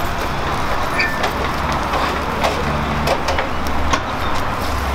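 Long knife shaving chicken doner off a vertical spit, with scattered short scrapes and clicks as the blade runs down the meat, over a steady low hum and street noise.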